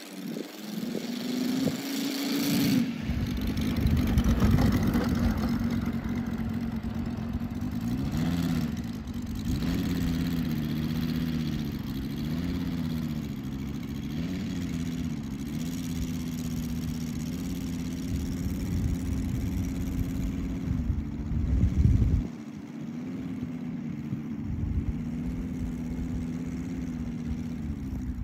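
Moki S180 five-cylinder radial engine of a large RC F4U Corsair model running. It picks up over the first few seconds, rises and falls in pitch with the throttle as the model rolls across the grass, then runs steadily.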